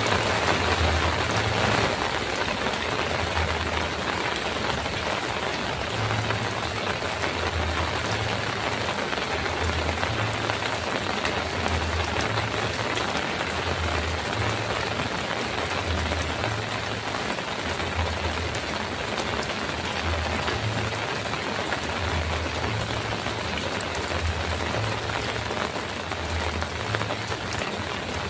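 Heavy rain drumming steadily on a metal roof, a little louder in the first two seconds, with a faint low pulse repeating about every second and a half underneath.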